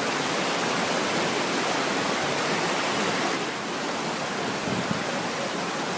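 Steady rushing of fast-flowing water, with the hiss a little duller about halfway through.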